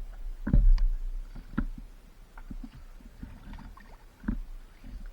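Paddling sounds on the water: irregular splashes and hollow knocks against a board, over a steady low rumble, with the loudest knocks about half a second in, at about a second and a half, and near the end.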